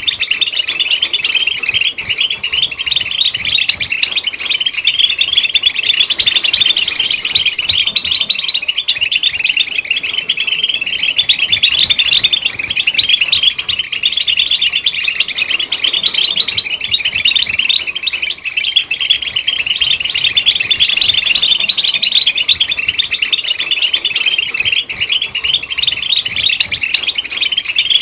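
European goldfinch song: a dense, unbroken stream of rapid twittering chirps and trills.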